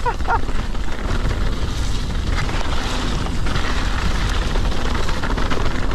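Wind rushing over the microphone with the steady rumble of mountain bike tyres rolling fast down a dirt trail.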